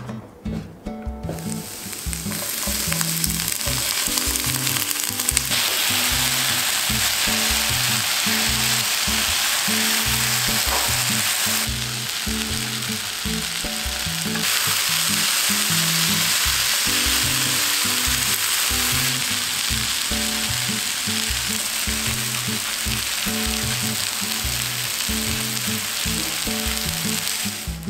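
Julienned potato and onion sizzling in oil in a frying pan, starting about two seconds in and keeping up a steady hiss.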